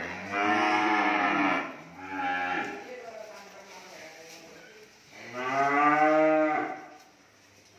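Cattle mooing: a long moo near the start, a shorter one about two seconds in, and another long moo about five seconds in, with quieter gaps between.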